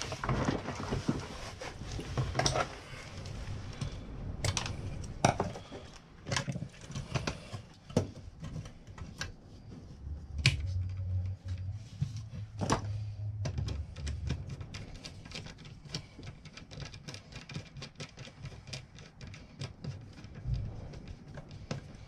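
Irregular clicks, taps and scrapes of hand work on a plastic consumer unit as a wire is trimmed, pushed into its terminal and the terminal screw is turned with a screwdriver. There are a few sharper knocks and a low rumble for a few seconds about halfway.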